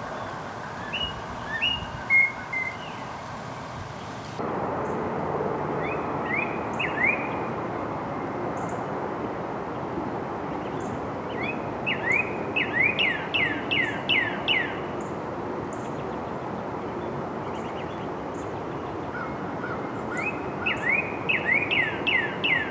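Northern cardinal singing: series of clear, down-slurred whistled notes repeated quickly, several phrases of up to about ten notes each, over a steady background noise.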